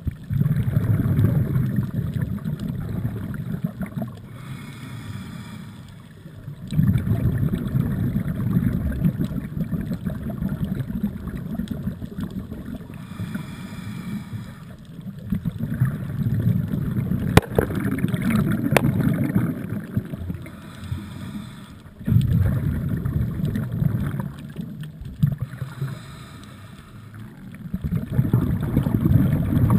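Scuba diver breathing through a regulator underwater: a gush of exhaled bubbles about every six seconds, five in all, with quieter gaps for each inhalation.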